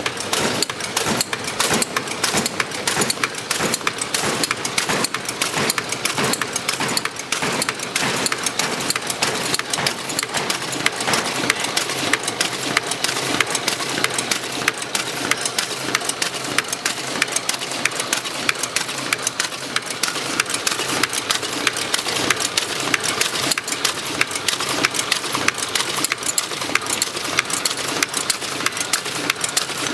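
Tea packaging machine running, its mechanism making a fast, even clatter of many clicks a second that stays steady throughout.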